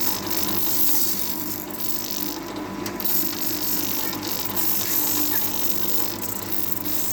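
Satay-skewer sharpening machine running steadily, its motor giving a constant hum with several steady tones over a high hiss.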